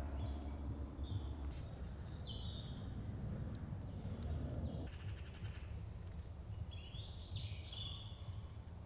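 Woodland ambience: a songbird sings two short chirping phrases, one about a second and a half in and another about seven seconds in, over a steady low rumble.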